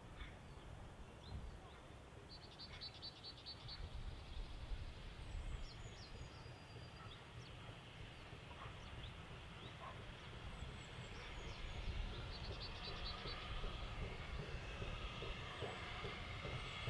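A steam train approaching, its noise growing louder over the last few seconds, over a steady low rumble. A small bird chirps twice in short trills.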